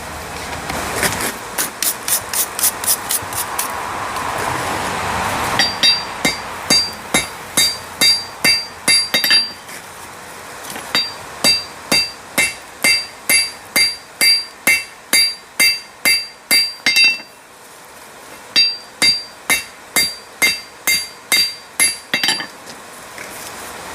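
Hand hammer striking a hot railroad spike on an anvil in steady runs of about three blows a second, each blow ringing, with short pauses between runs: the spike's nose being tapered down.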